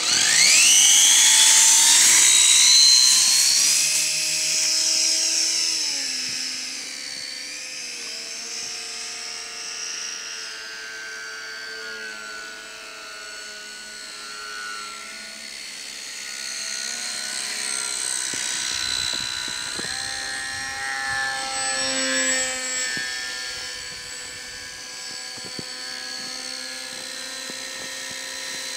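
Radio-controlled model PBY Catalina's twin motors and propellers spooling up to full throttle for a takeoff from snow: a loud whine that rises sharply in the first couple of seconds. It then goes on as a quieter, steady high whine that shifts up and down in pitch as the model flies.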